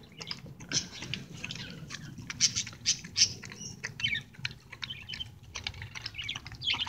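Dogs eating soft leftover food off plates: irregular wet chewing, smacking and licking clicks with no steady rhythm.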